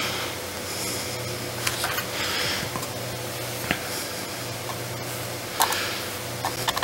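Steady low hum from workbench equipment, with a few light clicks and short soft hisses while flux gel is applied to a circuit-board chip.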